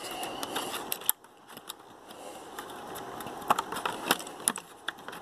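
Fingers working a CMOS coin-cell battery into its holder under a plastic cover on a laptop motherboard: soft scratchy rustling with a handful of sharp little plastic clicks.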